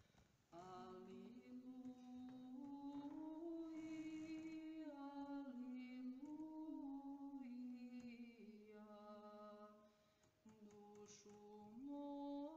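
Faint unaccompanied vocal chant: slow, long-held sung notes stepping up and down in pitch, with a short break about ten seconds in.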